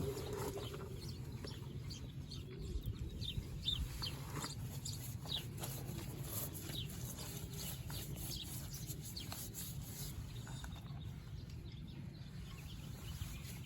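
Birds chirping now and then in short, high calls over a steady low rumble.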